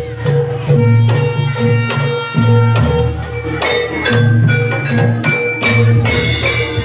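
Jaranan horse-dance accompaniment music: drums beating steadily over a repeating bass figure, with one note held throughout and pitched melody notes on top.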